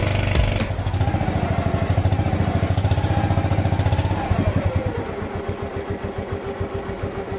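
Small boat engine running steadily, then throttled back about four seconds in, its note dropping and its beat slowing to a lower idle.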